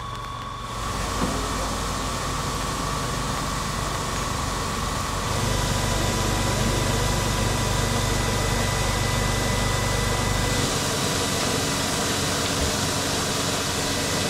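Historic electric railcars standing under power, their onboard equipment giving a steady hum and rush with a low rumble. The sound changes in steps about a second in, about five seconds in and near eleven seconds.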